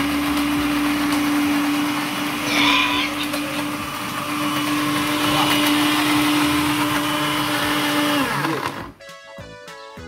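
Countertop blender running steadily at full speed, churning a thick mixture of sweets, then switched off about eight seconds in, its motor note dropping as it spins down. Background music with a beat comes in near the end.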